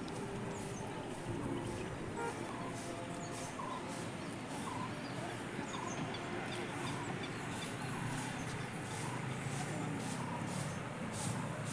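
Steady outdoor background din with many short bird chirps scattered through it.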